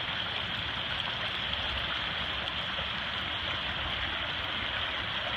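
Steady rushing of a fast-flowing, powerful river.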